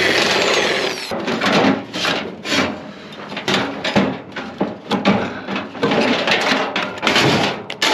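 Sheet-metal parts of a microwave oven scraping, rattling and knocking as it is pulled apart by hand, in a run of irregular bursts with a longer scrape in the first second.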